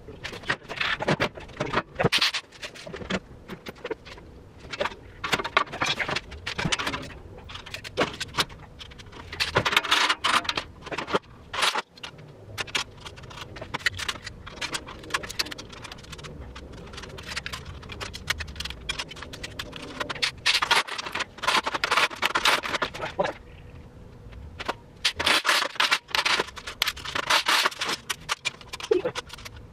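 Steel tool cart panels and loose bolts clattering and scraping during assembly. It is a dense, uneven run of knocks and rattles, with louder clusters of clatter about a third of the way in and again near the end.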